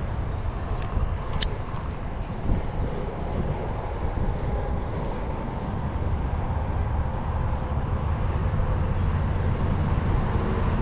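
Steady low rumble of outdoor background noise, with one brief sharp click about a second and a half in.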